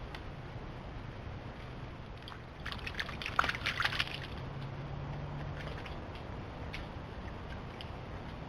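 A short cluster of splashes and clicks in shallow water, about two and a half seconds in and lasting about a second and a half, over a steady low hum.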